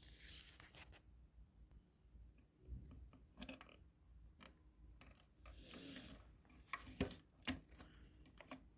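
Faint handling noises: light rubbing and scraping with a few small sharp clicks, from hands working a motorcycle headlight unit and its bulb wiring.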